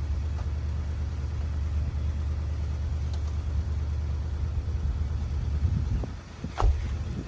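Steady low rumble that eases off about six seconds in, followed by a short knock.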